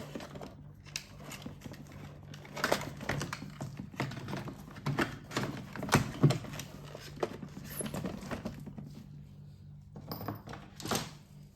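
Irregular small plastic clicks and knocks as a replacement drive-wheel assembly is handled and set into position in a Roborock Qrevo 5AE robot vacuum's plastic chassis.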